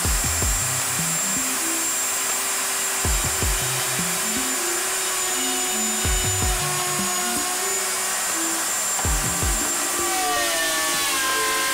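Table-mounted router running and cutting through a plywood panel, a steady loud whir with a thin high whine that drops out about ten seconds in, with dust-collection suction on the fence.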